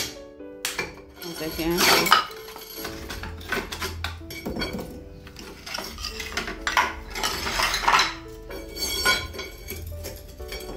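Pieces of ceramic tile clinking and scraping against a concrete counter top as they are handled and fitted, with longer scraping spells about two seconds in and again around seven to eight seconds.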